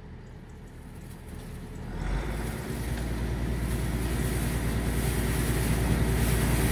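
Case IH 1455XL tractor engine speeding up to drive its front-mounted hydraulic yard brush. From about two seconds in, the engine hum and the hiss of the spinning brush build steadily louder. The brush turns slowly, which is put down to the old tractor's hydraulics having little flow.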